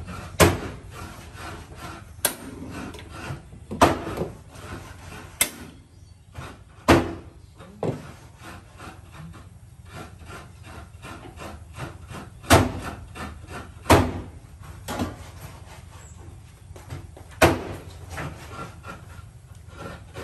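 Hands arranging woven coconut-leaf rice packets in a large metal cooking pot: dry leaves rustle, with a series of sharp knocks at irregular intervals.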